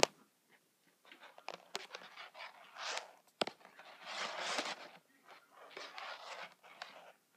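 Plastic craft lace being handled and pulled tight while weaving a twist stitch: a sharp click right at the start and another about three and a half seconds in, a few lighter ticks, and soft hissing rustles between them.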